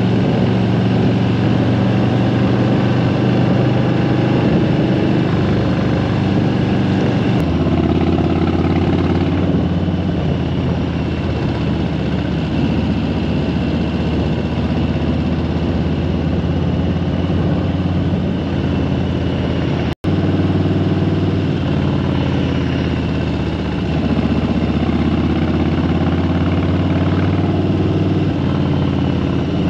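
Motorcycle engine running steadily while riding, with wind and road noise, heard from the bike itself behind its windscreen. The engine note steps lower about seven seconds in, and the sound cuts out for an instant about twenty seconds in.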